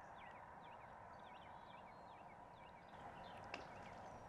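Faint chirping of small birds: many short, quick chirps repeating over a quiet background, with one soft click about three and a half seconds in.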